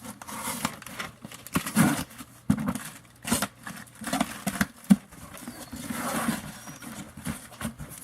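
Auto-parts packaging being handled and unpacked: rustling with irregular knocks and clicks as parts and boxes are picked up and set down.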